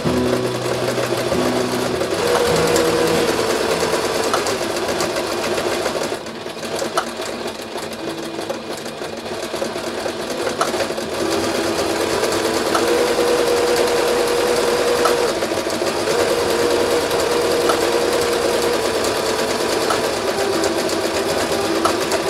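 Singer Brilliance domestic sewing machine running steadily as it zigzag-stitches through denim along a trouser seam, finishing the raw edge in place of an overlocker. The machine goes quieter for a few seconds about six seconds in, then runs on.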